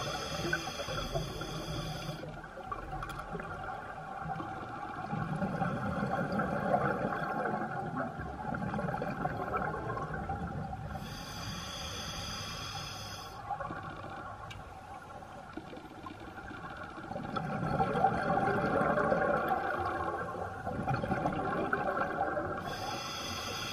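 Open-circuit scuba breathing underwater: a hissing regulator inhale about every eleven seconds, three times in all, with the rumbling rush of exhaled bubbles between the breaths.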